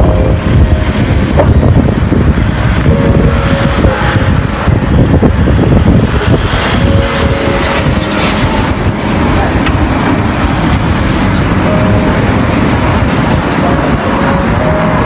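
Road traffic on a busy street, with cars and trucks passing in a steady low rumble.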